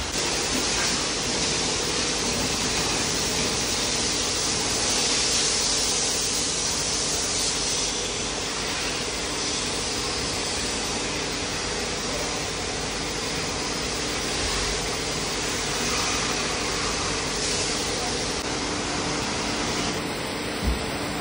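Water from a hose spraying against a car's body and splashing on the wet floor, a steady hiss that eases after about eight seconds, over a steady machine hum.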